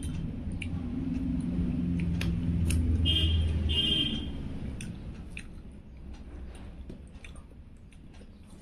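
Chewing and eating rice by hand from a steel plate, with scattered small clicks. Over the first half a low rumble swells and then fades, with two short high tones just past the middle of it.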